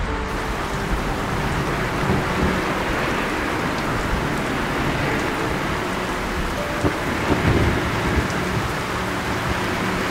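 Heavy rain pouring steadily, with a low rumble of thunder about seven seconds in.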